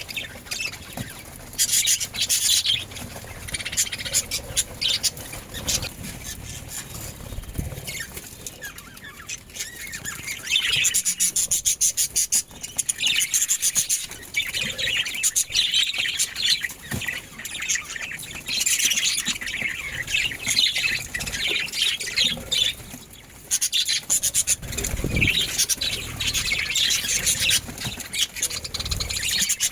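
Budgerigars chirping and chattering, with quick high chirps coming in runs that start and stop.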